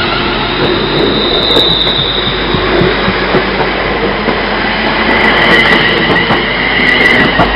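ScotRail Class 380 electric multiple unit pulling out past the platform: high electric traction whine over the rumble of wheels on rail.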